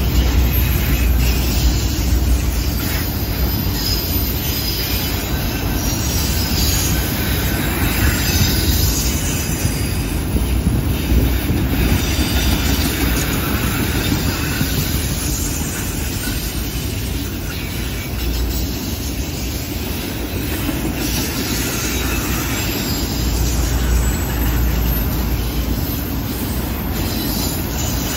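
Freight train of autorack cars rolling past: a steady rumble of steel wheels on the rails, with high wheel squeal coming and going as the wheel flanges grind against the rail on the curve.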